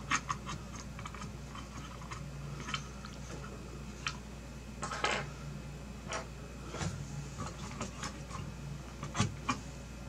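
Small PCIe x1 riser adapter cards being handled and pressed into motherboard slots: scattered small plastic clicks and taps with a few brief rustles, over a faint steady low hum.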